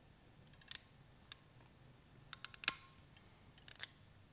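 Hand crimping tool clicking as a red insulated female bullet terminal is crimped onto a thin wire: a few faint, sharp clicks, the loudest a little under three seconds in.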